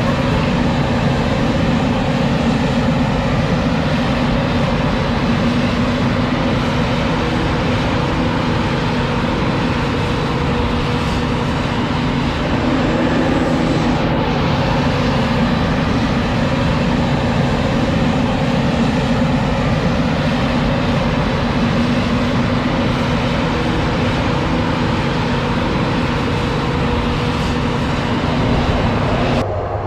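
Forage harvester chopping maize with tractors working alongside: heavy diesel engines and machinery running steadily under load, a loud continuous hum with steady engine tones.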